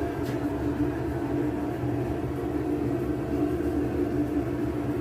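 Steady mechanical drone: a constant hum over a low rumble, unchanging throughout.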